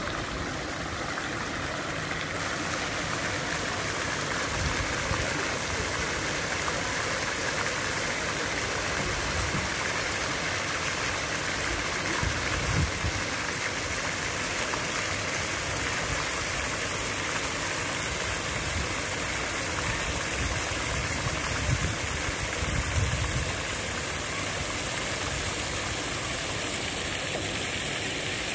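Steady rushing outdoor background noise, with irregular low rumbles now and then.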